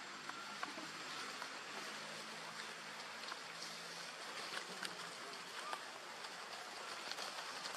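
Steady outdoor forest ambience: an even hiss with scattered faint clicks and a few brief high chirps.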